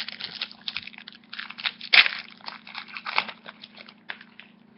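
Foil Yu-Gi-Oh booster pack wrapper crinkling and crackling as it is handled and torn open, a string of short irregular crackles with one louder one about two seconds in.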